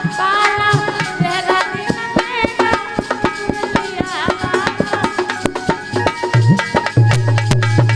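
Hindi devotional folk song music: hand drums beating a quick, steady rhythm under a wavering melody line.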